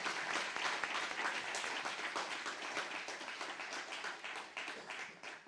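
Audience applauding, many hands clapping, the applause thinning and dying away near the end.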